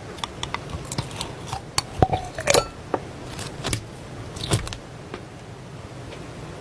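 Slime being handled, giving a run of irregular sharp clicks and small pops that thin out about five seconds in.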